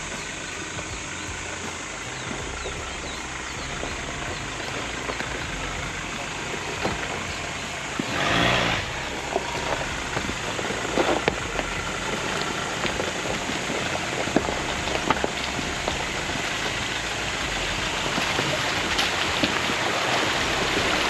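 Vehicle driving along a rough off-road trail: a steady rush of engine and tyre noise with scattered small clicks, and one louder swell about eight seconds in.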